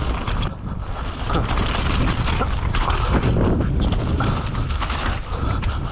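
Mountain bike descending a muddy forest trail at speed: a steady rumble of wind and tyres on the ground, with frequent clicks and rattles from the bike as it runs over bumps and roots.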